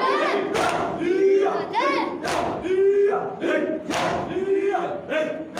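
A crowd of men chanting a repeated mourning cry together, with the sharp slaps of matam, open hands striking chests in rhythm, a little under a second apart.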